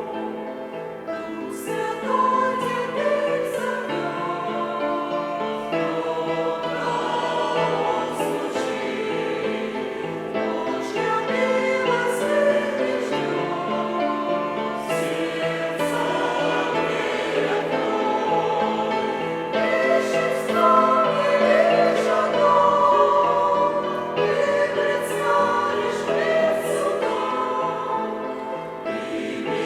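Church choir singing a hymn in parts, holding chords that move from note to note, with the consonants of the words audible.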